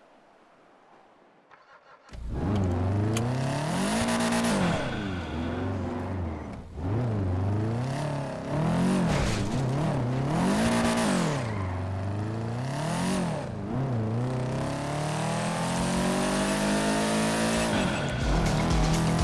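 A video-game car engine revving, its pitch climbing and dropping several times as it shifts through gears, then one long steady climb near the end. It starts suddenly about two seconds in, after near silence.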